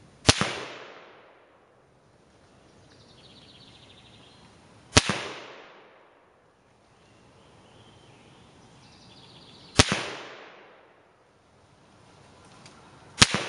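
Four single shots from a Norinco MAK-90 Sporter semi-automatic rifle in 7.62x39, fired slowly about five seconds apart, each a sharp crack followed by a trailing echo of about a second.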